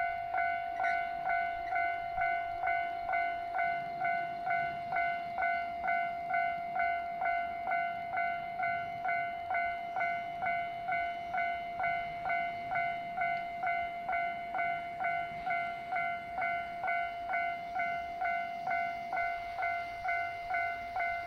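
Japanese level crossing warning bell ringing steadily, a pitched electronic ding repeating about twice a second: the crossing is active with a train approaching.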